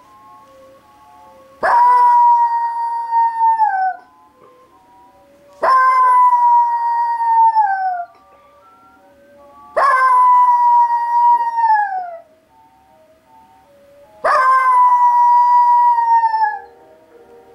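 Small dog howling, four long howls each about two seconds, held on one pitch and then sliding down at the end; the dog howls at the music of a commercial. Faint music plays in the gaps between howls.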